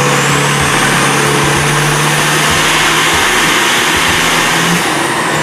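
Diesel pickup truck's engine running hard under load on a chassis dynamometer, thick exhaust smoke pouring out, with a steady high whine that falls away near the end as the run winds down.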